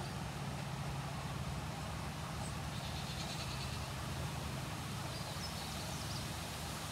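Electric pet clippers running with a steady low motor hum while trimming a Pomeranian's paw fur. Faint high chirps come through now and then.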